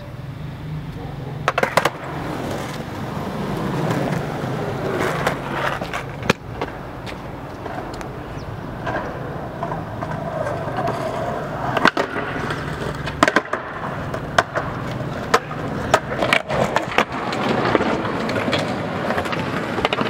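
Skateboard rolling on street pavement, the wheels giving a steady rumble, broken by a series of sharp clacks of the board hitting the ground, more of them in the second half.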